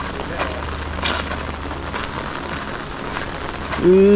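Steady rain falling on gravel and flooded ground, with scattered light ticks. Near the end, a short loud pitched sound about half a second long cuts in, rising and then dipping slightly in pitch before stopping abruptly.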